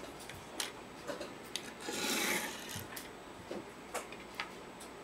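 Small plastic action-figure accessories being set down and moved about on a wooden tabletop: scattered light clicks and taps, with a short rubbing rustle about two seconds in.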